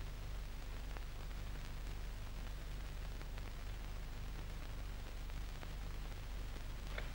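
Steady low hum and hiss of an old film soundtrack, with a few faint ticks.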